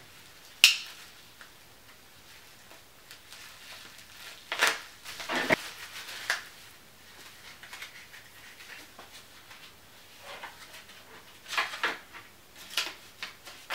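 Packaging and paper being handled: intermittent rustling and crinkling, with one sharp click under a second in.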